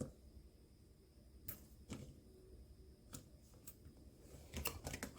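A few faint, scattered clicks and light taps, with a small cluster of taps near the end, typical of small parts and cables being handled on a desk.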